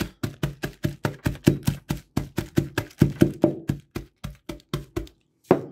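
A ceramic mug pounding an Oreo sealed in a plastic zip-top bag against a countertop to crush it: quick repeated knocks, about five a second, that stop shortly before the end with one last knock.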